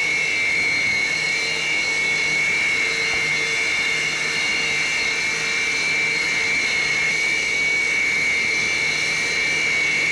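Sukhoi Su-27 fighters' twin AL-31F turbofan jet engines running at idle: a steady high-pitched whine with a few fainter higher and lower tones over a constant hiss.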